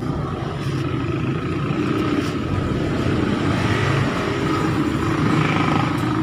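Street traffic: motor vehicle engines running and passing, with a steady low rumble.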